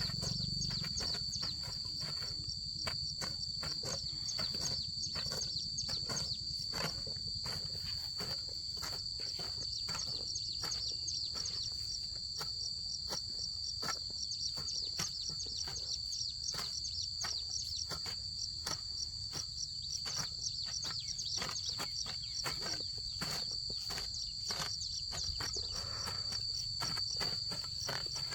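A steady, high-pitched insect chorus drones without a break, with many short clicks and rustles scattered through it.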